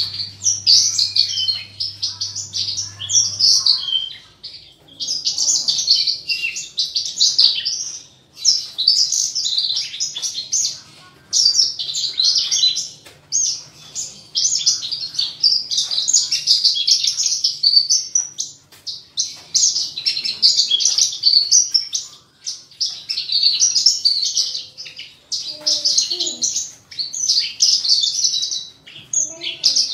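Caged Horsfield's bush larks (branjangan, Parva type) singing: a fast, high, chattering twitter delivered in phrases a few seconds long with brief pauses between them.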